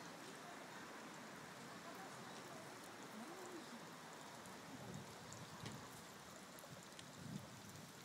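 Faint steady rushing of a nearby stream, with faint voices in the background now and then.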